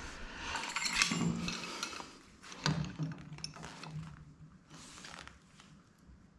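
Metal hand tools clinking and a cloth drop sheet rustling as a pipe wrench is picked up, followed by a few sharp clicks and knocks of metal on metal.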